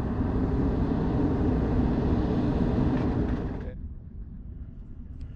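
A departing motorhome's engine running steadily. It cuts off abruptly about three and a half seconds in, leaving quiet outdoor background.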